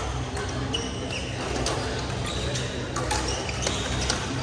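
Badminton play in a hall: scattered sharp racket-on-shuttlecock hits and short shoe squeaks on the court floor, over a steady low hum and faint distant voices.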